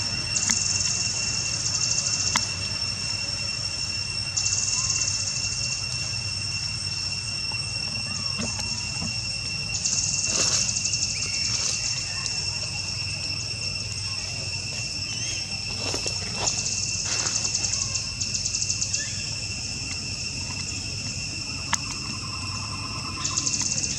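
Forest insects calling: a steady high-pitched drone, with rapid pulsing trills that come in bursts of a second or two every few seconds.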